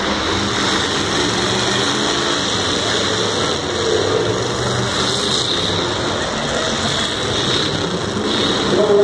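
Engines of several demolition derby cars running in the arena, a steady loud engine noise.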